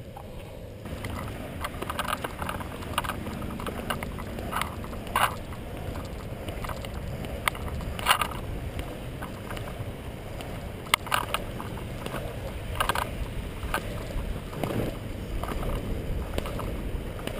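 Longboard wheels rolling on asphalt with a steady low rumble, and irregular sharp knocks every couple of seconds as the Kahuna Big Stick land paddle is planted against the pavement to push.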